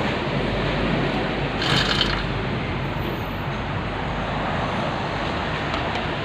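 Small four-stroke engine of a Badja grass cutter running steadily, with a brief hissy surge about two seconds in.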